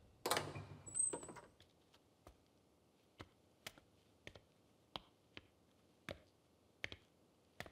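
Faint footsteps: sharp single steps at roughly one to two a second on a hard floor, after a couple of louder knocks in the first second.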